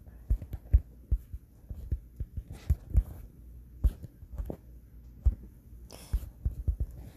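Soft, irregular thumps and knocks of fingers tapping and handling a smartphone, picked up by the phone's own microphone, with a couple of faint rustles.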